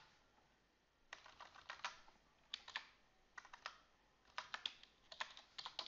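Computer keyboard typing: short runs of keystrokes in about five groups separated by brief pauses.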